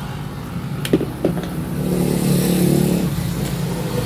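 A motor vehicle's engine running steadily in the background, swelling louder for about a second around two seconds in. Two light clicks come about a second in.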